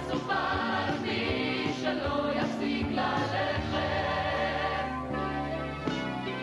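Group vocal ensemble singing a Hebrew song in choral harmony over band accompaniment. The voices thin out toward the end, leaving mostly instruments.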